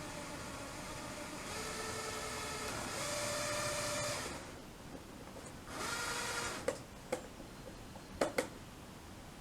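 Plastic toy train's small electric motor whirring with a gear whine, running for about four seconds and then stopping, with a brief second run about six seconds in. A few sharp plastic clacks follow, the last two close together near the end.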